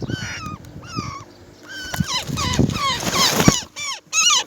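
Roller nestlings giving begging calls: a rapid series of short, high squeals, each sliding down in pitch. A rustle and a sharp knock come a little past the middle.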